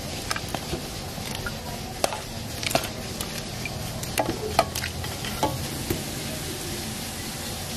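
Shakarpara dough pieces being tipped into hot oil for deep-frying: the oil sizzles steadily, with scattered sharp clicks and knocks as the pieces go in. From about six seconds in, only the even sizzle of frying remains.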